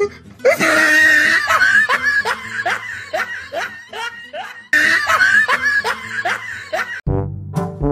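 A person laughing hard in quick repeated 'ha' pulses, about three a second, with a short break about five seconds in. Brass comedy music starts near the end.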